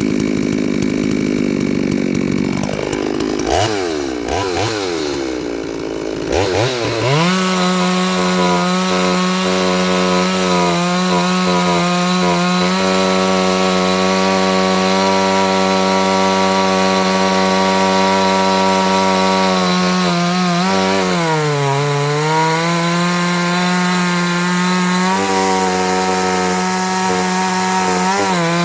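Petrol chainsaw revving unevenly for the first few seconds, then held at full throttle in a long steady cut through a log with a chain sharpened at 55°, 0° and 30°. The engine pitch dips briefly about three-quarters of the way through under load, then recovers.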